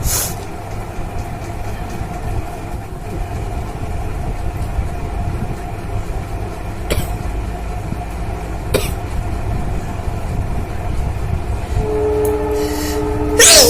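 A steady low rumble with a faint held tone, a couple of brief clicks, and two more steady tones joining near the end; right at the end a woman sneezes loudly, the sneeze set off by tickling her nose with a thin rolled paper.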